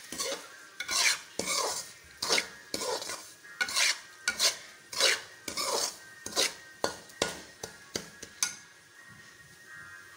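Perforated metal spoon scraping and stirring semolina roasting in a steel kadai, in rough strokes about twice a second that stop about 8.5 seconds in.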